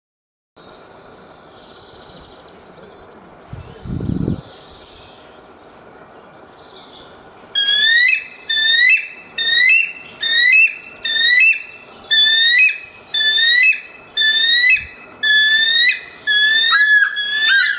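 Bald eagle calling: a regular series of about a dozen high, piping notes, a little more than one a second, starting about halfway through. Before the calls there is faint background noise and a short low thump about four seconds in.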